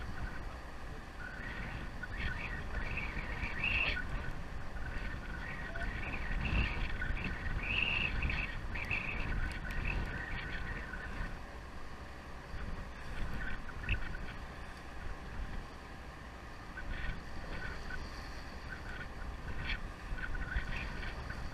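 Steady low rumble of wind and sea water around a sportfishing boat's hull at the rail, with scattered short high-pitched chirps over it, busiest in the first half and again near the end.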